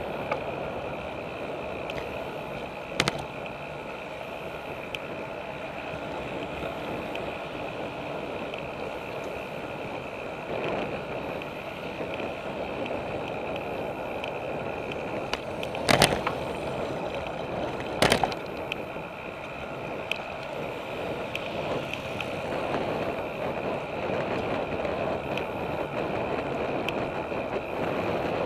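Road bike rolling along a paved path, heard from a handlebar-mounted camera: steady tyre and wind noise, with a sharp knock about three seconds in and two more close together past the halfway mark.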